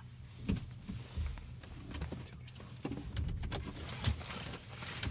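Quiet car cabin: a low rumble with scattered small clicks and knocks from movement in the seat.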